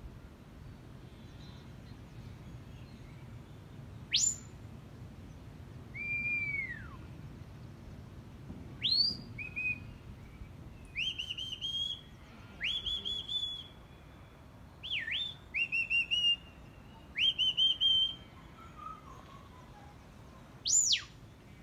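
Shepherd's whistle commands to working border collies: about ten sharp whistled signals. Some are single notes that sweep up or down, others quick runs of three or four repeated notes.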